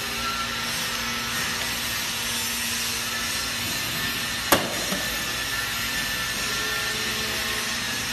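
Wrench turning a screw on the lifting rod of a chuck tray threader, with one sharp metallic click about four and a half seconds in, over a steady hiss.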